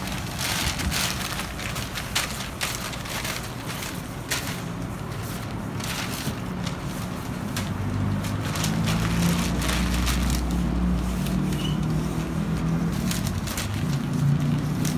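Crumpled newspaper crackling and rubbing against a car windscreen as the wet glass is wiped, with short hisses of a hand pump sprayer at the start. A low engine hum comes in from about eight seconds in.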